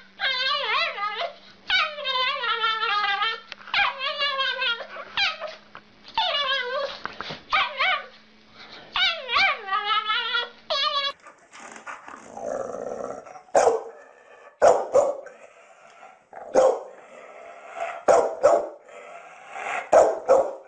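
A small dog gives a string of long, wavering, high-pitched whining howls. About eleven seconds in, a larger pit bull-type dog takes over with short, separate barks.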